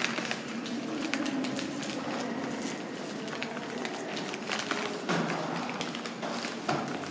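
Footsteps of people walking, with irregular soft knocks and clicks over steady corridor background noise.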